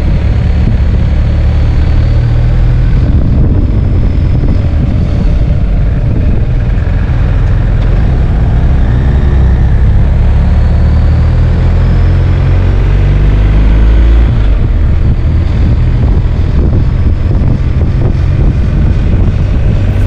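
BMW R1250 GS's 1254 cc boxer-twin engine running under way, its pitch rising and falling with the throttle through the bends. Heavy wind rumble on the bike-mounted microphone sits underneath.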